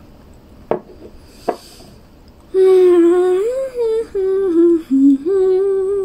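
Two short clicks, then, about two and a half seconds in, a woman humming a little tune: held notes stepping up and down with brief breaks.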